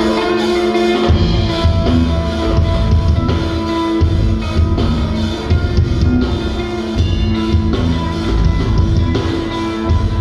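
A metal band playing live: distorted electric guitars and bass over a drum kit, with heavy bass-drum hits coming in about a second in.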